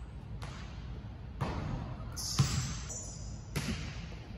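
A basketball bouncing on a hard indoor court floor: a few separate thuds with a short echo after each, the loudest about two and a half seconds in.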